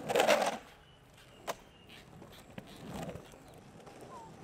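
Surfskate's 65 mm urethane wheels rushing over pavement in a brief loud burst at the start, then a single sharp click about a second and a half in and a softer rolling swell around three seconds.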